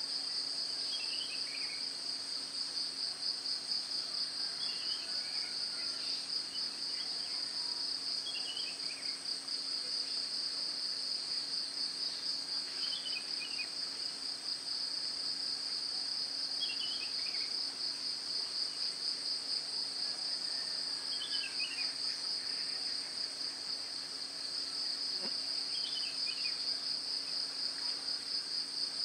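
Dense chorus of crickets, a steady, fast-pulsing high trill, with a short falling chirped call repeating about every four seconds over it.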